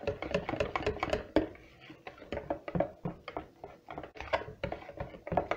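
Wire whisk beating thin pancake batter in a plastic bowl: a quick, uneven run of light clicks and taps as the wires knock the sides of the bowl, with a short lull about two seconds in.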